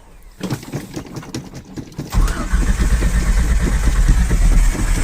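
Carbureted Ford Ranger engine cranking on the starter. It gets much louder about two seconds in as it tries to fire, then cuts off near the end without starting. The owner puts the hard start down to fuel starvation.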